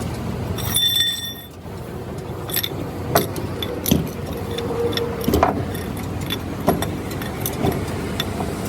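Scattered metal clinks and knocks, about five sharp strikes spread a second or so apart, over a steady background rumble. A brief high tone rings out about a second in.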